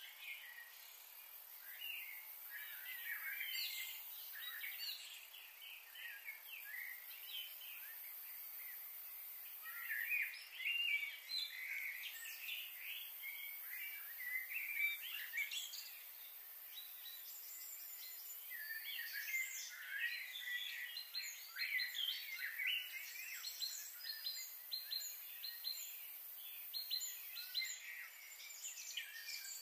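A chorus of songbirds chirping and calling, many short overlapping calls, thinner for a few seconds and busier after about ten seconds.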